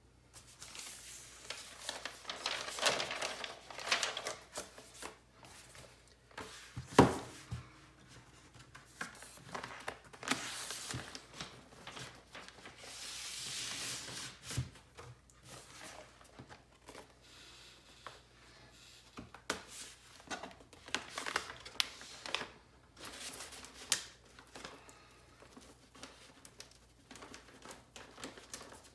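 A vinyl LP in a white paper inner sleeve being handled and slid against its cardboard album jacket, with irregular paper rustling and scraping. A single sharp knock about seven seconds in is the loudest sound, and a steadier sliding hiss runs for a couple of seconds around the middle.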